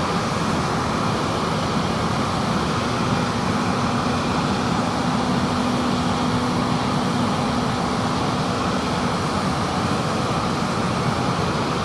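John Deere hillside combine running steadily while harvesting wheat: a continuous mechanical drone, with a steady hum that comes in about three seconds in and fades out around nine seconds.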